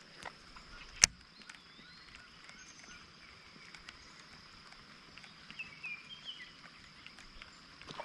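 Quiet lakeside outdoor ambience with a steady faint high tone, a single sharp click about a second in, and a few brief small-bird chirps in the second half.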